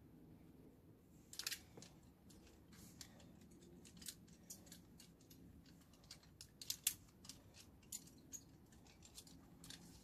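Faint, scattered clicks and small clinks from top-rope climbing gear being handled. A louder cluster comes about a second and a half in, and the loudest near seven seconds.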